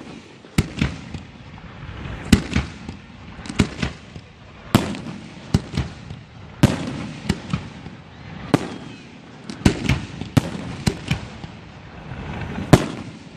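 Fireworks bursting: about twenty sharp bangs at irregular intervals, often in quick pairs, each trailing off in a short echo.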